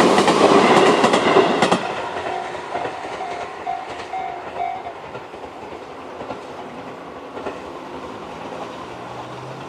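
Tobu 850 series electric train running over the level crossing, its wheels clattering over the rail joints, then moving away and fading after about two seconds. The crossing's electronic warning bell (Tobu type C tone) rings in a pulsing pattern and stops about five seconds in.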